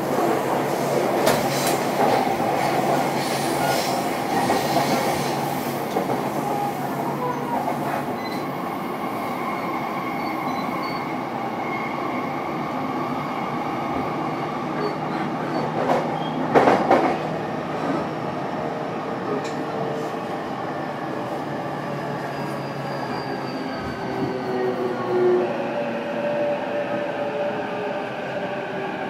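JR East E233-series electric train heard from inside the motor car MoHa E233-1226 while running: steady rail rumble and wheel noise with the traction motors' whine, whose tones glide in pitch in the second half. A loud clatter of wheels over the track comes about 16 seconds in.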